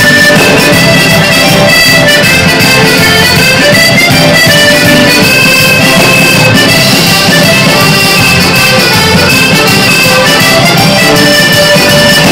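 Live, amplified band music: two accordions lead a traditional Labrador dance tune, backed by drum kit, electric guitar and bass guitar.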